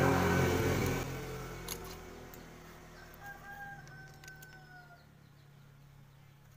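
A rooster crowing, the call fading out about a second in, followed by a fainter, thinner crow about three seconds in that slowly drops in pitch. A few light clicks fall between the two.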